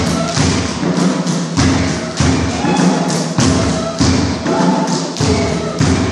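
Drum accompaniment for a dance: deep drum strokes in a steady beat, a little under two a second, with hand clapping along.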